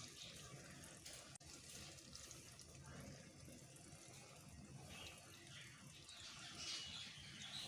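Faint, quiet liquid sounds as beaten egg is poured from a glass bowl into a kadai of simmering potatoes.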